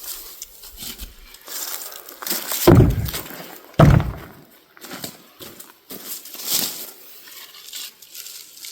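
Chunks of freshly cut firewood dropped into a wheelbarrow: two heavy thuds about a second apart, the loudest sounds, with lighter crunching and rustling of wood and brush before and after.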